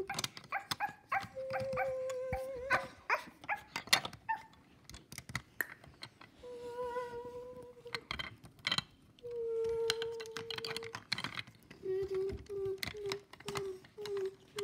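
A person's voice imitating a dog howling and whining in long held notes, then short repeated yips near the end. Frequent clicks and knocks of plastic toy pieces being handled run throughout.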